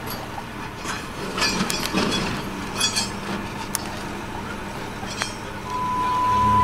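A few light, sharp clinks and clicks over a steady background rumble; near the end a steady beep-like tone begins.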